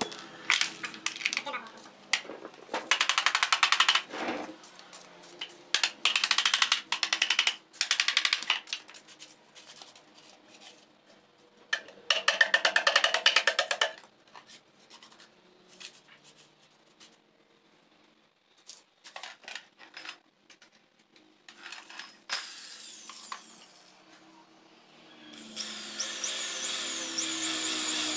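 Hand-tool work on a metal motorcycle exhaust pipe: three bursts of rapid scraping strokes, each lasting about two seconds, with scattered clicks and taps between them. About 25 seconds in, an electric hand drill starts and runs steadily, its pitch wavering.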